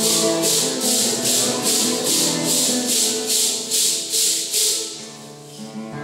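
Congregation singing a Santo Daime hymn together, with maracas shaken in a steady beat of about two to three strokes a second. About five seconds in the maracas stop and the sound drops away.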